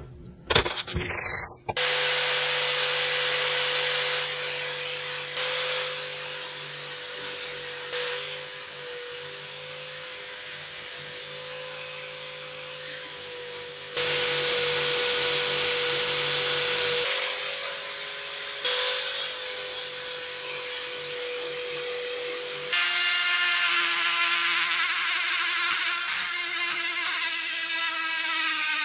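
Electric drill running steadily, with a small wire wheel scrubbing rust off a cast iron axe head. Near the end a smaller high-speed rotary tool with a tiny wire brush takes over, with a higher whine.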